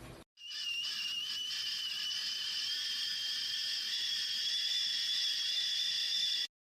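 Kaisa Villa stainless steel whistling kettle whistling at the boil: a steady, shrill tone that rises slightly in pitch, starting suddenly just after the beginning and cutting off abruptly near the end.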